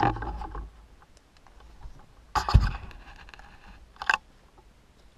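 Handling noise on a Smith & Wesson 15-22 rifle: scraping, with a dull thump about two and a half seconds in and a short click about four seconds in.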